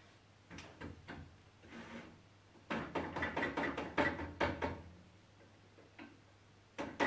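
Folding ruler and pencil being handled on a metal table-saw top: scattered rubbing, clicks and light knocks, busiest from about three to five seconds in.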